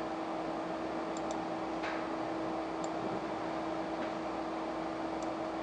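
Room tone: a steady electrical hum over a low hiss, with a few faint clicks.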